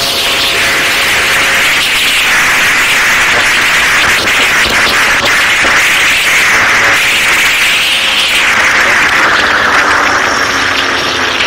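Yamaha RX two-stroke motorcycle ridden at speed: a loud, hissing rush of engine and wind noise that swells and eases several times.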